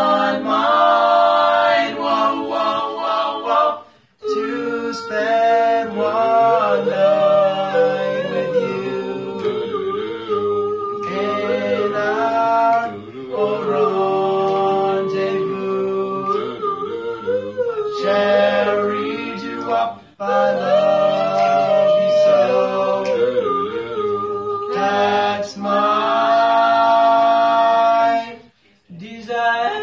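Four-voice male a cappella doo-wop group singing held close-harmony chords, with short breaks about four seconds in, around twenty seconds in and near the end.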